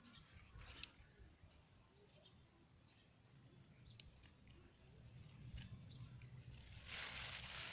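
Faint rustling and small ticks of bean plants and leaves being handled while beans are picked, with a louder rustle about seven seconds in.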